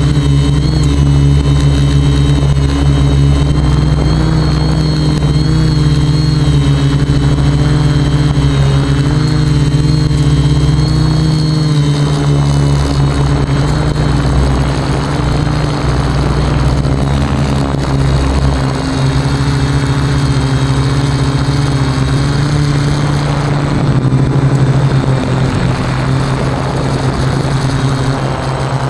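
Quadcopter's electric motors and propellers whirring in flight, a loud steady hum whose pitch wavers slightly as the throttle changes.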